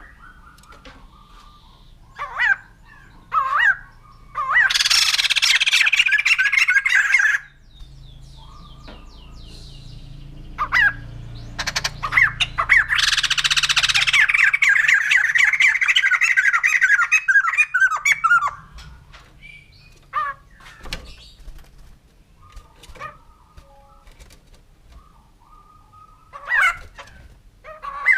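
White-crested laughingthrush calling: two long bursts of rapid chattering notes, the second longer, with short single calls between them.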